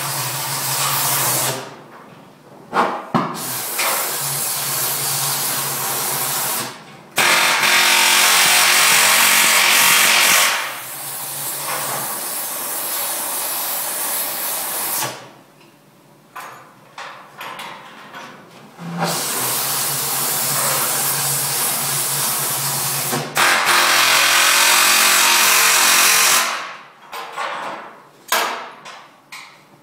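Power tool running on the steel chassis in long runs of several seconds, stopping and starting again with short gaps of clatter between; two of the runs are louder than the rest.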